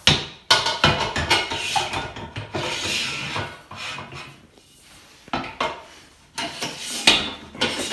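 White metal frame rails of an IKEA VANGSTA table being handled and fitted into the table's underframe: scraping and rubbing against the frame, broken by several sharp knocks and clacks, the first right at the start and the last about seven seconds in.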